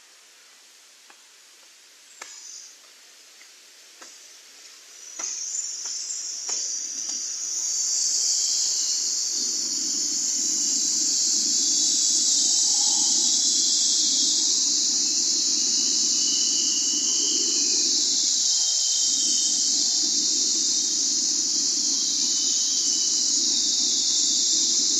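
Waterfall rushing, a steady loud hiss that swells in over the first several seconds as it comes into range, with a lower rumble of falling water joining about ten seconds in. A few faint clicks come before it.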